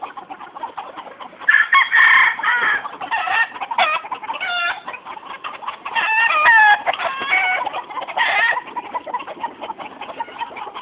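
Several roosters crowing one after another, their calls partly overlapping and in different pitches, with a quieter stretch near the start and again near the end.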